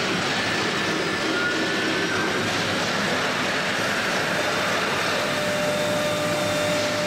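Three-spindle CNC router (Chencan CC-MS1325AC3) milling a wooden door: a steady rushing machining noise with faint spindle whines that shift in pitch.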